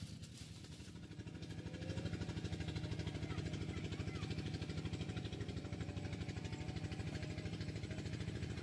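A small engine running steadily, with a rapid even beat, growing louder over the first two seconds and then holding.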